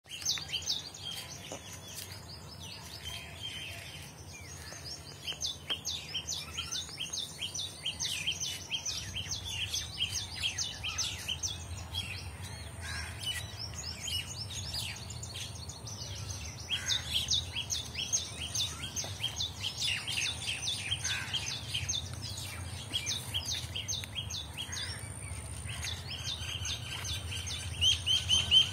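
Small birds chirping and twittering, with many short, quick, high notes throughout and a louder run of chirps near the end, over a steady low rumble.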